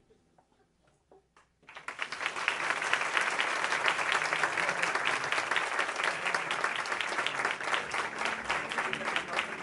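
Audience applause: after a short lull it breaks out suddenly about two seconds in, then goes on as dense, steady clapping.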